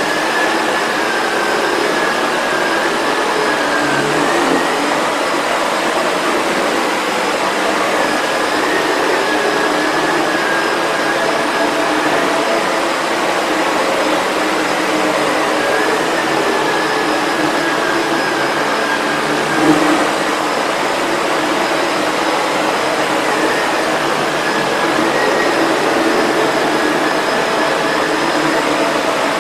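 Sebo Felix upright vacuum cleaner running on a shag rug, its motor whine and powerhead brush roll steady, with the brush roll set to its highest height setting. The whine's pitch wavers slightly as the head is pushed back and forth, and there is one brief louder bump about two-thirds of the way in.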